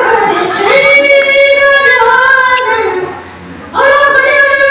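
A ventriloquist singing in the high, childlike voice of his puppet, in drawn-out phrases with long held notes. It breaks off briefly about three seconds in, then the singing starts again.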